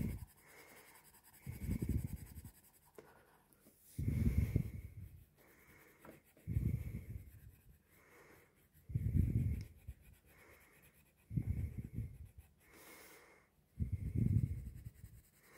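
Coloured pencil scratching on paper during shading. Soft, low breaths or puffs against the microphone come about every two and a half seconds and are the loudest sound.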